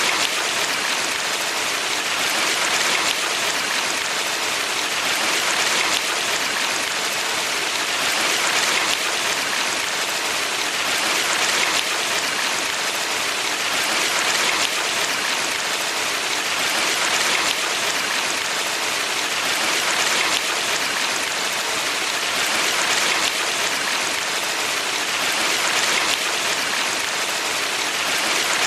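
Flowing water of a valley stream: a steady, dense rush that swells gently about every three seconds.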